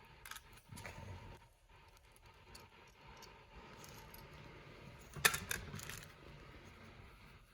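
Small metal carburetor parts and screws clinking as they are handled and set down, with a brief cluster of clattering clicks about five seconds in.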